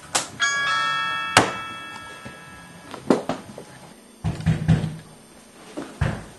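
A two-note doorbell chime rings and dies away over about two and a half seconds, followed by a few dull thumps of footsteps on the floor.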